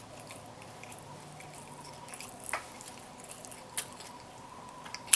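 Faint wet mouth smacks of someone chewing food close to the microphone: a few separate clicks, about two and a half, four and five seconds in.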